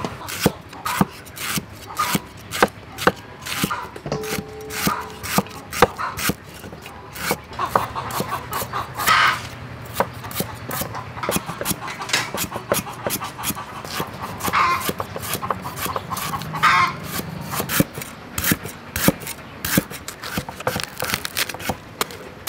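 Cleaver chopping on a wooden cutting board: a long run of sharp knocks, several a second, with an occasional short pitched call in the background.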